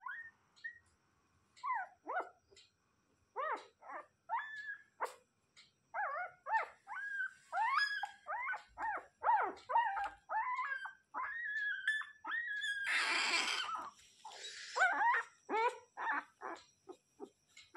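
Newborn puppies crying: a long run of short, high-pitched whimpering cries, many sliding down in pitch, the sound of puppies searching for their mother. A short burst of rustling cuts in about thirteen seconds in.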